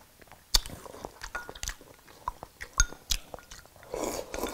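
Chopsticks clicking and clinking against a ceramic bowl a few times, then soup being slurped from the bowl near the end.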